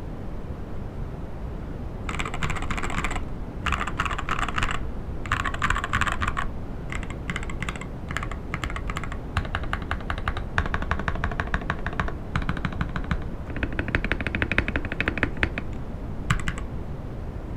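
Typing on an Akko ACR67 gasket-mounted mechanical keyboard with an acrylic case: fast runs of keystrokes broken by short pauses. The typing starts about two seconds in and ends with a last short burst near the end.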